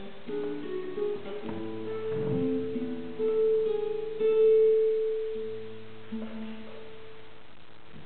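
Solo classical guitar played fingerstyle: a phrase of plucked notes builds to a loud held note about four seconds in, a few lower notes follow, and the last notes ring out and fade away as the piece ends.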